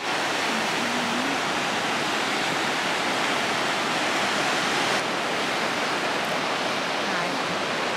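Steady rushing of sea surf breaking around offshore rocks, an even roar with no distinct wave beats.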